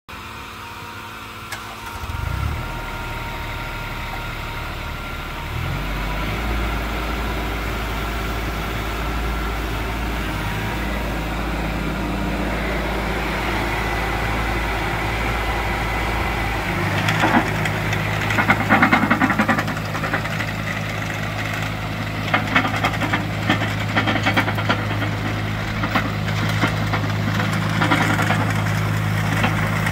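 Diesel engine of a CAT 301.7D mini excavator running steadily. It steps up in speed a couple of seconds in and again about halfway through, when the machine is put to work. From then on there is irregular clanking and rattling over the engine hum.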